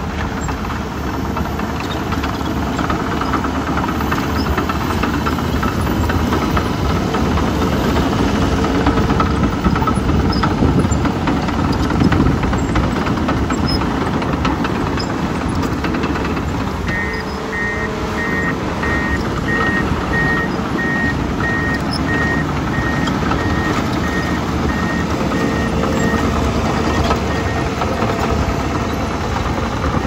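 Komatsu D51PXi crawler dozer's diesel engine running steadily as it pushes dirt. From just past halfway, its backup alarm beeps evenly for about ten seconds as it reverses.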